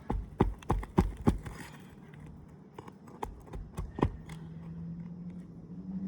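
Sharp knocks of a roofer's tool working the nails out from under an asphalt shingle: five quick, evenly spaced strikes in the first second and a half, then a few scattered taps. A steady low hum comes in about four seconds in.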